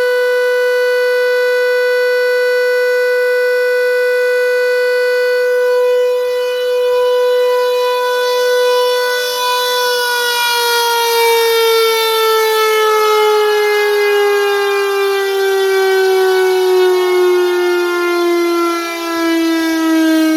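Secomak CS8 siren sounding a single loud, steady tone with many overtones. About halfway through, its pitch begins to fall slowly and steadily as the siren winds down.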